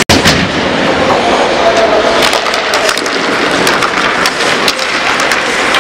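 Ice hockey play in a rink: sticks clacking on the ice and against each other and skates scraping, many short sharp clicks over a steady noisy din, with voices in the hall. The sound drops out for an instant just after the start.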